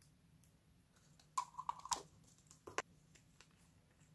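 Light clicks and taps of small hard plastic and glass pieces being handled, with a short squeak about a second and a half in. A red nail polish bottle is picked up and its cap twisted.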